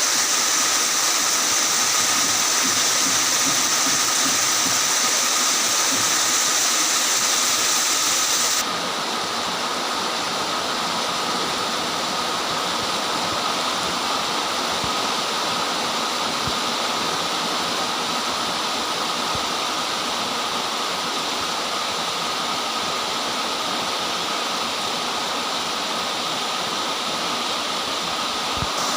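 Very heavy rain pouring down in a steady, dense hiss. About nine seconds in, it becomes a little softer and duller.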